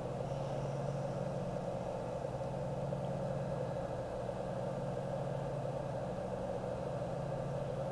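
Electric potter's wheel running with a steady motor hum.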